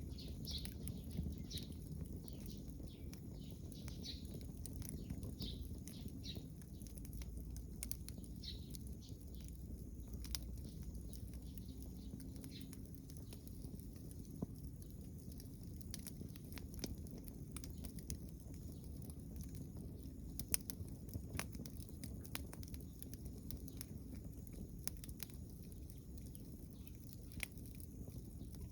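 Wood fire crackling, with irregular sharp pops and snaps scattered throughout over a low steady rumble; a couple of louder pops come about twenty seconds in.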